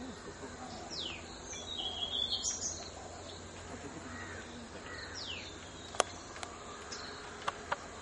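Insects buzzing steadily, with birds calling over them: a falling whistle, once about a second in and again about five seconds in, and a short burst of chirps around two seconds. A few sharp taps come in the last two seconds.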